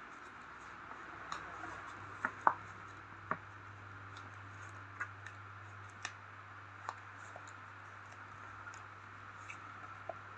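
Cardboard animal puzzle pieces being handled and set into their slots: a scattering of light taps and clicks over a steady low electrical hum.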